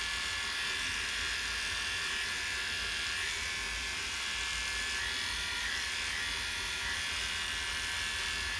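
Electric dog grooming clippers with a size 15 blade running steadily, a continuous buzz as they are pushed against the grain through the dog's coat on the cheeks.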